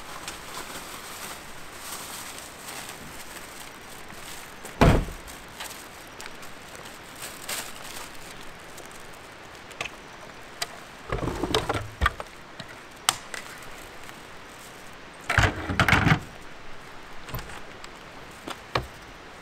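A light truck's cab door slams shut about five seconds in. Then a wooden ladder is unhooked from the back of a camper and set down against it, with two spells of clattering knocks, the second the louder, and a few light clicks near the end.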